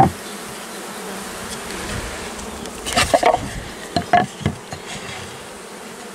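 Honeybee colony humming steadily from an open hive. A knock right at the start and a cluster of wooden knocks and clatters about three to four and a half seconds in, as the hive's roof boards are handled.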